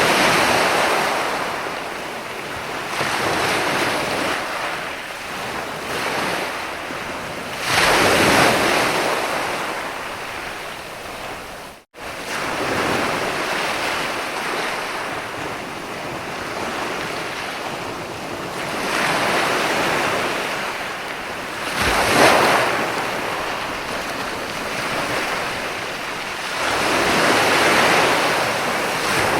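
Ocean waves washing in, a continuous roar of surf that swells and falls as each wave breaks every few seconds. The sound cuts out for a split second about twelve seconds in.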